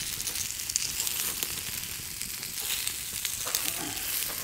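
Vegetables sizzling in a perforated grill wok over a campfire, with a dense crackle of small clicks as metal tongs turn them in the pan.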